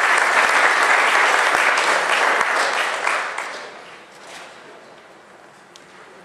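Audience applauding at the end of a talk. The clapping dies away over about three and a half seconds, leaving a quiet room with a few faint clicks.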